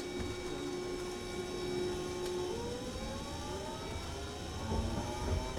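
Hiroden streetcar pulling away, heard from inside the car: its electric traction motors give a steady tone, then from about two and a half seconds in a whine of several tones rising in pitch as it accelerates. A low rumble from the wheels on the rails builds near the end.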